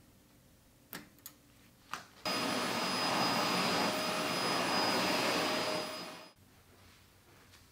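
Vacuum cleaner running as its floor head is pushed over carpet: a steady rush with a high whine that starts suddenly about two seconds in and cuts off abruptly about four seconds later. A few light clicks come before it.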